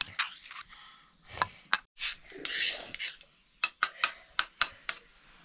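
Kitchen utensils clinking against pots and dishes in a series of sharp clicks, with a scraping rub a little after two seconds in and a quick run of clinks in the second half.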